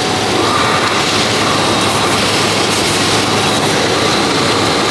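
Automatic yarn winding machine running, rewinding yarn from small cops onto large bobbins: a loud, steady mechanical whir with a faint high tone through it.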